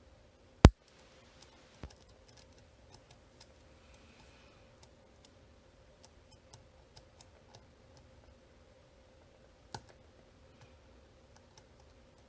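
Small scattered metallic clicks and ticks from a lock pick working the pins of a 9-pin dimple cam lock. There is one sharp, loud click just under a second in, and two weaker ones near 2 s and 10 s.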